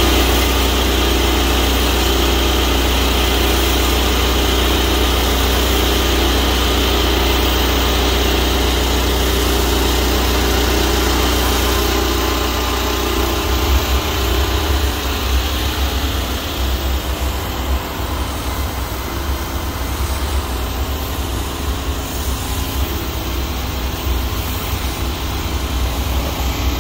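A pressure washer runs steadily, feeding a rotary surface cleaner that sprays across slate roof tiles: a constant engine-and-pump drone with water hiss. About halfway through the low drone turns rougher and uneven and slightly quieter.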